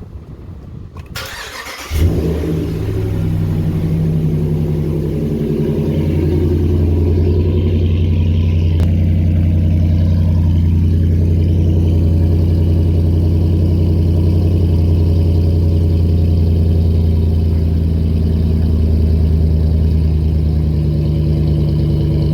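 Ram 1500 pickup's HEMI V8 breathing through a new MBRP cat-back exhaust, cranking briefly and catching about two seconds in on its first start with the new system, then settling into a steady idle.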